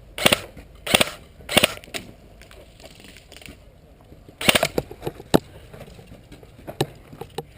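Airsoft guns fired in single shots: three sharp pops about two-thirds of a second apart near the start, a quick pair and another pop in the middle, and two fainter pops near the end.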